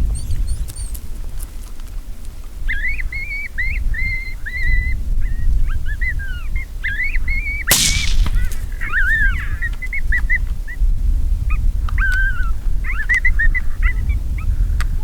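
A group of coyotes yipping and howling in high, wavering, warbling calls that start about two and a half seconds in and keep going to the end. A single sharp crack cuts across them about eight seconds in.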